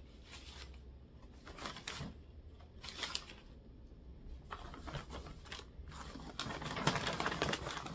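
Paper and wrapping rustling and crinkling in irregular bursts as items are handled and pulled out of a shopping bag, growing busier in the last few seconds.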